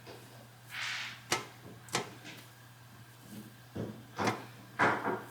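A string of sharp knocks and clicks, about six of them, with a short rustle about a second in, over a steady low hum: things being handled, opened or set down.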